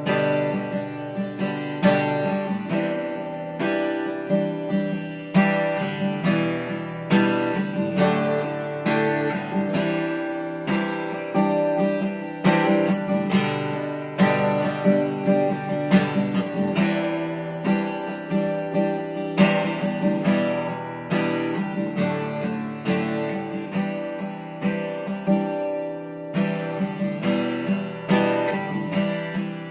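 SQOE Cranberries 41 acoustic guitar strummed, chords ringing in a steady rhythm.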